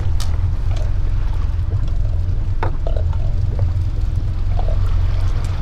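Steady low rumble aboard a small boat, with a sharp knock just after the start and another about two and a half seconds in as menhaden bait is handled in a landing net on the deck.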